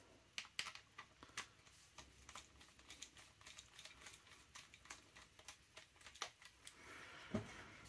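Faint, irregular light clicks from a screwdriver driving a screw into an airsoft rifle's pistol grip.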